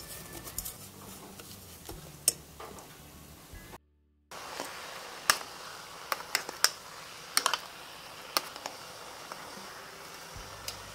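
A metal utensil clicking against a cooking pot now and then over a steady faint hiss, with background music. The sound drops out completely for about half a second around four seconds in.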